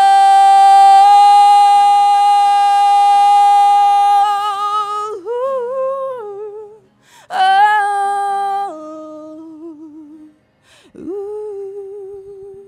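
A woman singing solo, holding one long steady 'oh' note for about four seconds, then shorter melodic phrases with vibrato that fall away, ending in soft humming near the end.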